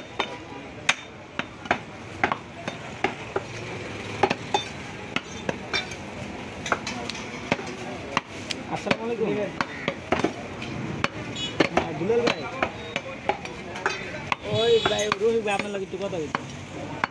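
Butcher's cleaver chopping beef into chunks on a wooden chopping block: sharp, irregular knocks, about one or two a second.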